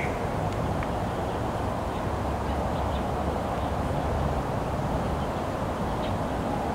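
Steady, even low rumble of outdoor background noise, with no distinct sound standing out.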